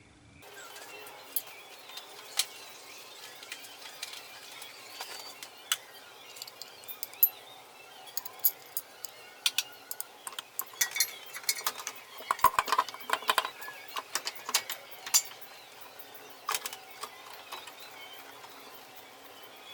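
Metal hand tools clinking and tapping on metal parts: irregular sharp clicks, densest around the middle, over a faint steady hiss.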